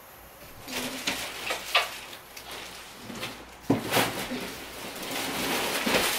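A stroller in plastic wrapping is hauled up out of its tall cardboard box: plastic wrap crinkling and rustling and cardboard scraping, with a couple of sharp knocks. The rustling grows busier toward the end.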